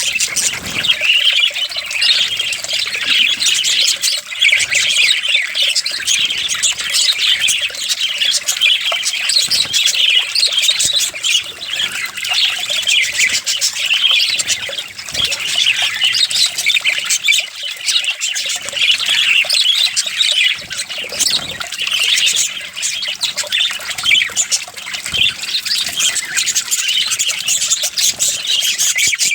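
A flock of small parrots chattering and squawking continuously, with many overlapping short, high calls.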